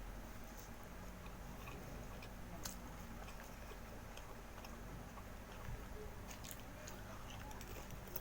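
A person chewing food, with scattered soft mouth clicks now and then.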